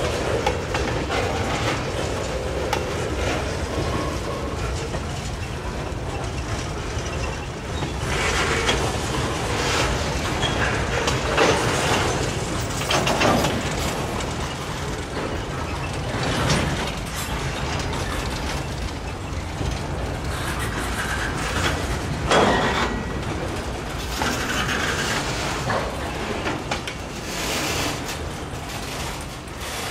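Railroad train rolling past on the rails, a steady noise of wheels and cars going by, with several brief louder surges.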